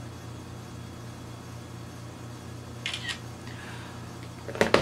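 Phone camera shutter sound about three seconds in, over a steady low hum of room tone, followed by a couple of sharp clicks near the end.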